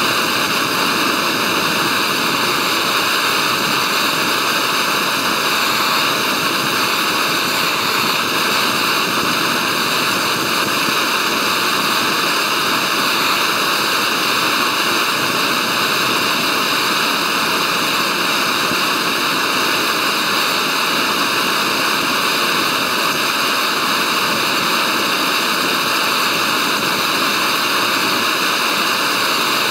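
MSR Pocket Rocket gas canister stove burning under a titanium pot of water, an even, unbroken hiss of the flame. The stove is running below full output, not turned up to full.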